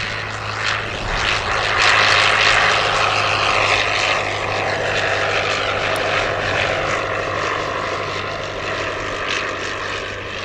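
A Royal Aircraft Factory B.E.2c biplane flying past with its single piston engine running and its propeller turning. It is loudest about two seconds in, then slowly fades as it draws away.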